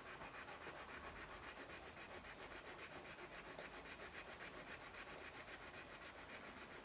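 Yellow coloured pencil scribbling on paper in quick short back-and-forth strokes, a faint steady scratching as a small area is filled in with colour.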